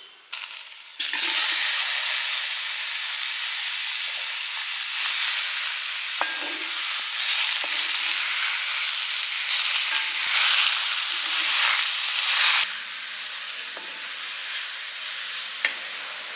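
Raw chicken pieces dropped into a hot pan of fried onions and roasted spice powder sizzle loudly from about a second in, as a wooden spatula stirs them through with scraping strokes. The sizzle drops to a softer level near the end.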